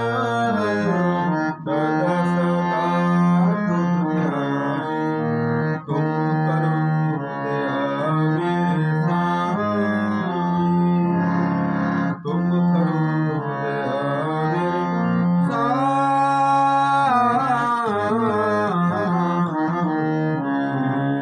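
Nagi harmonium playing a sustained reedy melody while a man sings Sikh kirtan (devotional hymn) over it. The sound breaks off briefly a few times, about one and a half, six and twelve seconds in.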